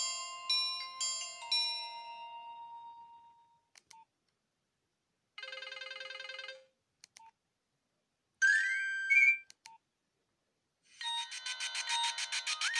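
Nokia 1661 ringtones and alert tones played through the phone's small speaker, one after another: a chiming melody fading out, short single beeps between tones, a brief buzzy chord about halfway, a quick rising run of notes, and a new fast-pulsing ringtone starting near the end.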